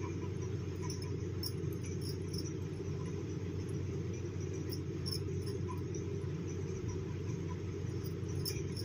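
Steady low background hum with faint, irregular light ticks scattered through it.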